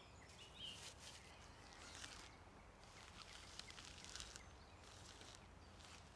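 Faint rustling and crinkling of a tent's flysheet as it is unrolled and spread out on grass, in short irregular bursts.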